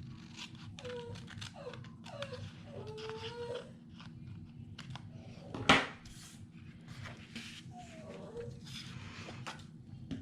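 A pet animal giving a run of short, falling, high-pitched cries, with another a few seconds later. A single sharp click about halfway through is the loudest sound.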